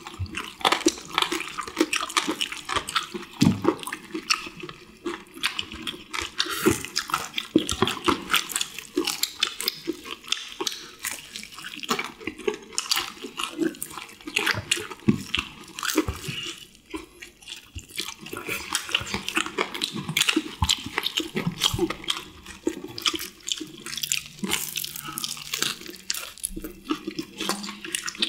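Several people eating honey-glazed fried chicken: a dense run of crunching, chewing and sticky, wet smacking from the glaze, easing off briefly about halfway through.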